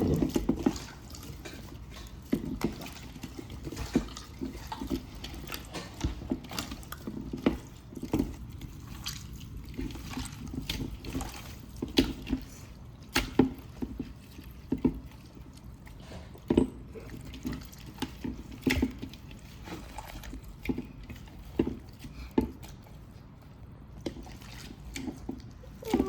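Slime being squished and mixed, making irregular wet clicks and pops.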